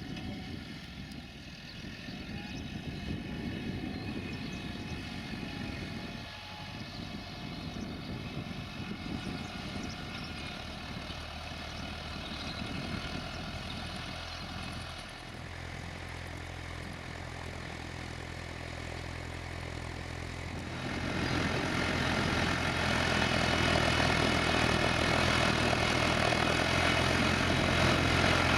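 New Holland T6010 tractor's diesel engine working under load while ploughing. It becomes a steady hum about halfway through, then grows clearly louder about three-quarters of the way in, as though the tractor is coming closer.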